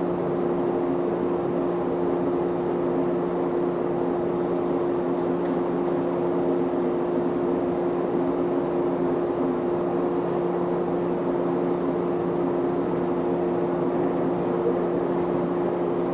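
Steady hum of an electric train, with two low steady tones over an even rumble.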